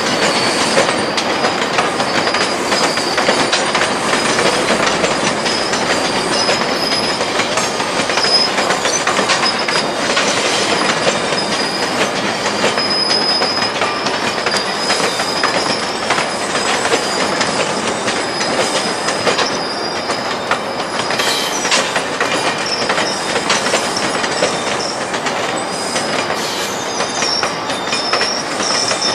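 GO Transit bilevel passenger coaches rolling past as the train enters the station, with a thin, wavering high-pitched wheel squeal coming and going over the steady clatter of wheels on rail joints and switches.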